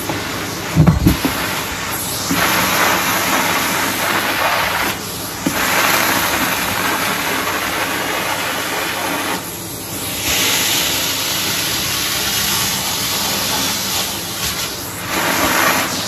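Henry canister vacuum cleaner running, air rushing through its metal wand and crevice nozzle as it is worked along the skirting board and carpet edge; the rush dips a few times as the nozzle is lifted or pressed against the surface. A low knock about a second in.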